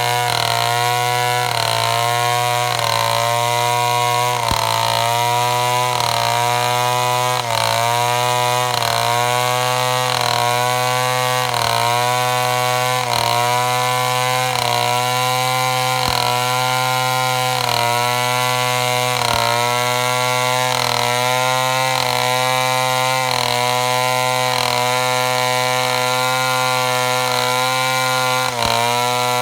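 Two-stroke chainsaw running at high revs while cutting wood. Its engine note dips and recovers about every second and a half as the chain is loaded in the cut.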